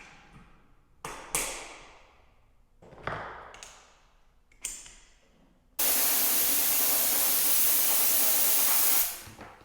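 Compressed air hissing from an air tool on a newly plumbed shop air line: a few short blasts, each trailing off, then a steady blast about three seconds long that cuts off sharply.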